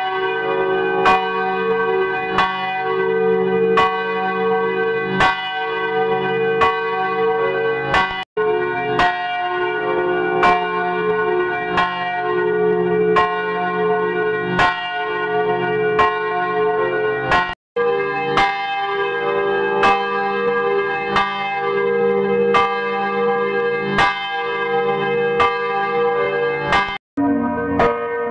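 Church bells ringing, struck one after another at about three strokes every two seconds, with a hum of overlapping ringing tones between strokes. The sound cuts out abruptly for a split second three times, and after the last cut the bells ring lower.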